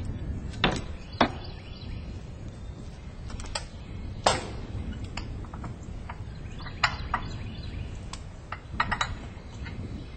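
Scattered metallic clanks and clicks, a dozen or so, from a tree stand's securing chain and strap hardware being unhooked from the tree trunk, the loudest a little past four seconds in with a short ring.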